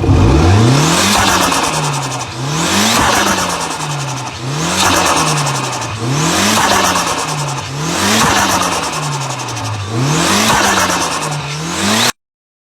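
Diesel truck engine revved up and let back down about once every two seconds, six times, with the turbo fluttering ("stututut") as the throttle snaps shut after each rev. The sound cuts off abruptly near the end.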